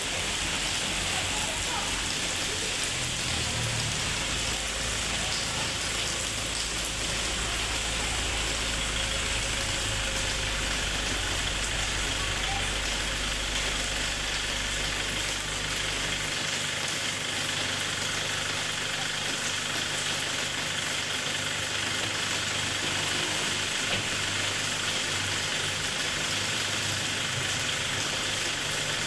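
Steady rain falling, with a vehicle engine running under it. A deep low hum stops about halfway through.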